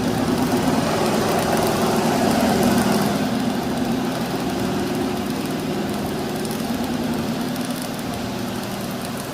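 TIP TIG welding on stainless steel: the arc and hot-wire feed give a steady buzzing hum with a hiss over it.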